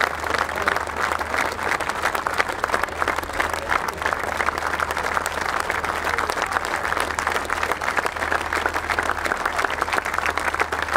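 Large stadium crowd applauding steadily, countless hands clapping at once without a break, over a steady low hum.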